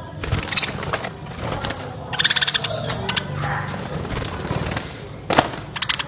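A flock of budgerigars chattering. About two seconds in there is a loud burst of rapid scratchy chirps, and a sharp short call comes near the end.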